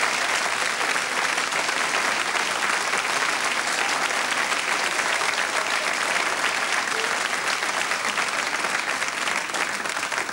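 Audience applauding steadily, a dense crowd of clapping hands that eases off slightly near the end.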